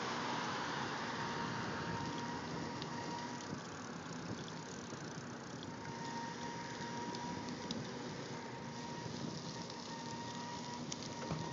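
Street traffic noise: a car driving past at the start, then a steady hiss of traffic and outdoor air, with a faint high whine that comes and goes.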